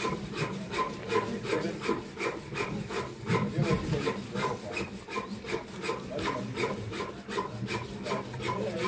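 Steady rhythmic rasping of a hand tool, about four strokes a second.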